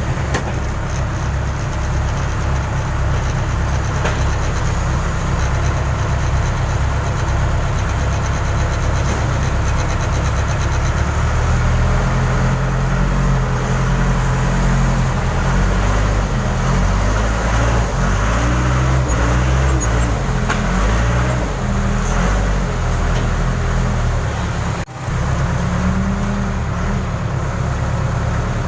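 Case 580 Super K backhoe's diesel engine running loud under load while pulling a stuck crane free; about twelve seconds in the engine speed starts rising and falling as it works. A brief sudden dip in the sound comes near the end before it picks up again.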